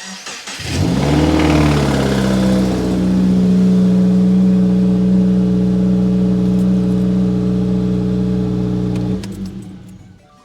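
2020 Subaru WRX's turbocharged flat-four started: it catches, flares up in pitch, then settles into a loud steady idle, and is shut off about nine seconds in. This is the knocking start-up noise that the owner at first feared was rod knock.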